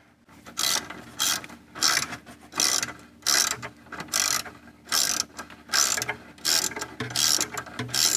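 Ratchet wrench clicking in short bursts about twice a second as it is swung back and forth, backing out an outboard motor's 14 mm oil drain bolt.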